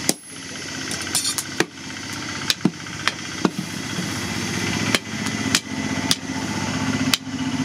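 A steady motor hum with sharp metallic knocks, about ten of them at uneven intervals of half a second to a second and a half. The hum grows slowly louder toward the end.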